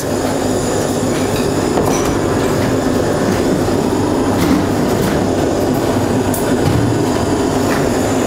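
Steady mechanical rumble and hiss with a low hum, even in level throughout, with a few faint ticks on top.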